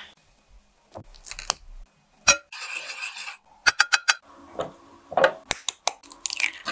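Sharp clinks, taps and knocks of kitchen utensils, with a wooden spoon tapping and scraping in a small metal saucepan of melted butter. A longer scrape comes about two and a half seconds in, and another near the end.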